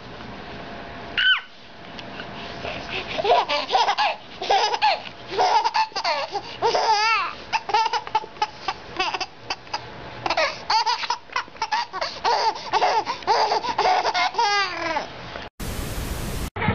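A baby laughing hard, in a long run of giggles that rise and fall in pitch. A short burst of static hiss cuts in near the end.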